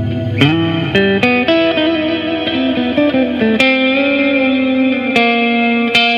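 Clean electric guitar played through an EarthQuaker Devices Astral Destiny octave reverb pedal. A handful of picked notes, some sliding in pitch, ring out and blend into a long, lush reverb wash.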